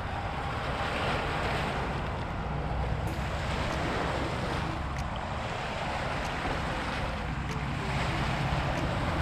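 Small waves breaking and splashing against shoreline rocks, the wash swelling and easing every few seconds, with wind buffeting the microphone as a low rumble.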